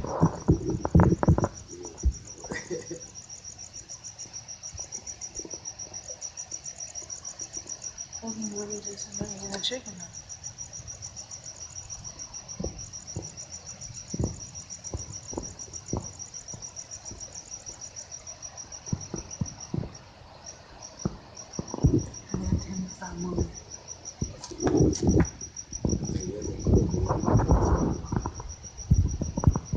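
Cricket chirping: a high, rapid, steady pulsing trill that breaks off for a moment about twenty seconds in. Louder knocks and rustles come in over the last few seconds.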